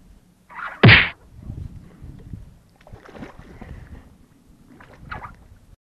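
A long fishing pole swished hard through the air in a strike: one loud, sharp swish about a second in. Quieter rustling and knocking of handling follow.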